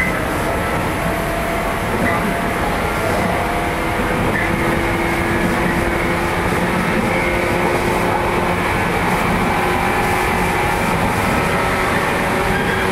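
JR 115 series electric train running: a steady rumble of wheels on rail, with a hum that slowly rises in pitch.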